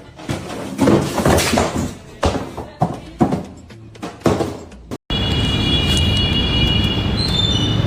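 A run of irregular knocks and thuds for about five seconds, then, after an abrupt cut, a steady rumbling noise with several high, steady squealing tones.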